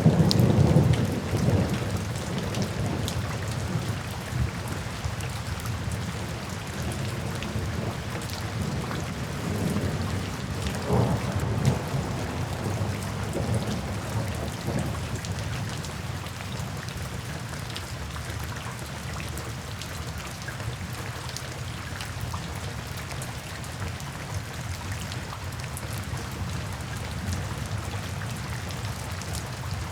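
Steady rain falling, with rumbles of thunder: a loud one at the start and another about ten to fifteen seconds in, then rain alone.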